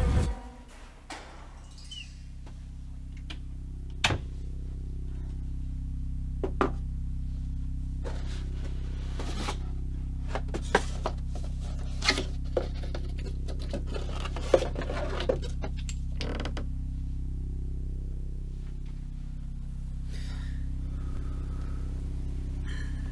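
Scattered knocks, taps and light clatter of objects being handled on closet shelves, the sharpest about 4, 12 and 14.5 seconds in, over a low steady drone.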